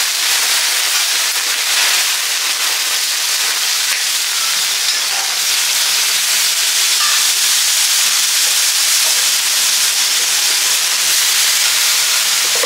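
Steady sizzling hiss from a hot steel teppanyaki griddle as alcohol is flambéed on it and then liquid squeezed from a bottle hits the plate and boils off in steam.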